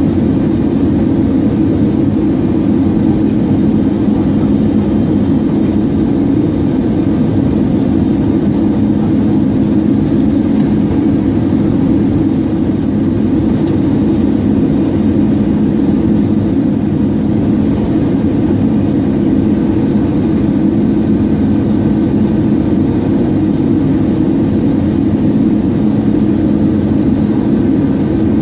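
Cabin noise of an Airbus A320-216 on final approach, heard from a window seat beside the wing: its CFM56 turbofan engines and the airflow past the fuselage make a steady, unchanging low drone with a hum held underneath.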